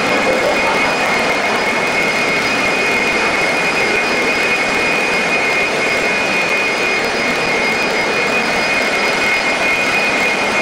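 Corded electric leaf blower running steadily, a loud rushing noise with a high whine over it.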